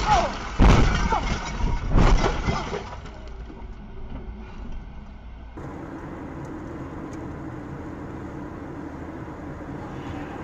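Car crash heard from a dashcam: loud crunching impacts, with two more heavy bangs about a second and two seconds in, dying away over the next second. From about five and a half seconds in, a steady road and engine noise from inside a moving car.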